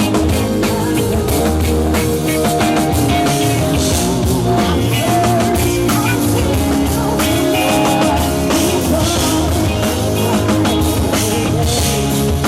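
Live band playing a rock song, with a drum kit keeping a steady beat under held guitar and keyboard-like chords.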